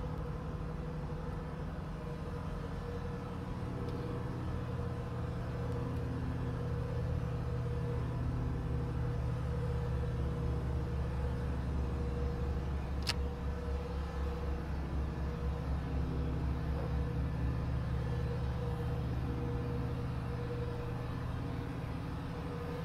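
A machine running steadily with a low drone and a held mid-pitched tone, and a single sharp click about thirteen seconds in.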